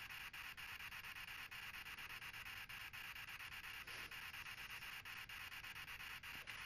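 Faint, steady electronic static hiss, broken by quick regular clicks about five or six times a second.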